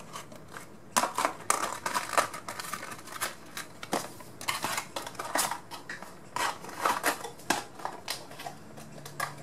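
Irregular crinkling, rustling and sharp clicks of a model airplane's box packaging being handled and packed away.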